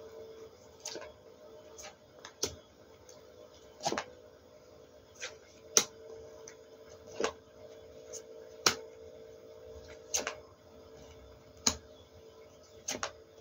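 Tarot cards being handled and laid out on a table: sharp clicks and taps about every second or so, over a faint steady hum.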